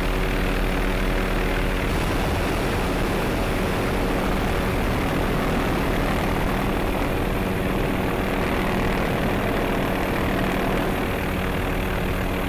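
MD 530F Cayuse Warrior light helicopter in low, fast flight: steady rotor and turbine noise, with a set of steady engine tones over it that drop away about two seconds in.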